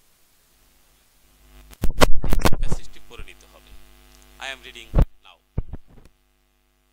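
Electrical mains hum with crackling on the microphone line. After a near-silent start, loud crackles and a buzzing hum come in about two seconds in and die back, and there is a sharp click about five seconds in.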